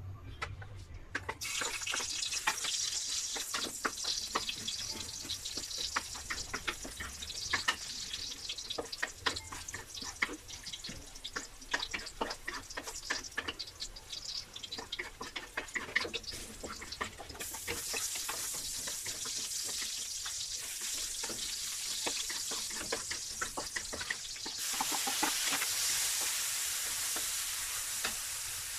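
Chopped aromatics sizzling in hot oil in a wide aluminium wok while a wooden spatula stirs them, scraping and tapping against the pan many times. The sizzle starts about a second in and grows louder twice later on.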